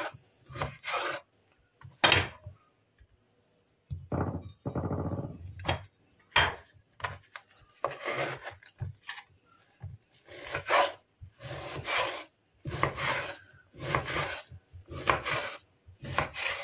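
Kitchen knife slicing raw chicken breast on a wooden cutting board: the blade draws through the meat and scrapes on the wood in irregular strokes, roughly one a second, with one long drawn-out cut about four seconds in.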